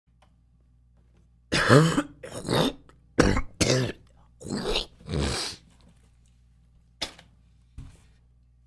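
A person coughing and clearing their throat: six coughs in three quick pairs, followed by two short faint clicks.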